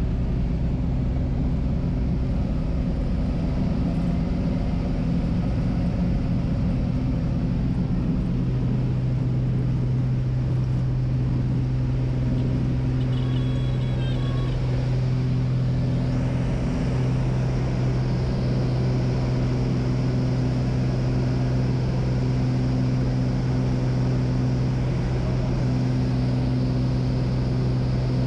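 Piston engine and propeller of a single-engine high-wing light aircraft droning steadily, heard from inside the cabin. Several seconds in the engine comes up to full power for the takeoff run and holds there through the climb-out.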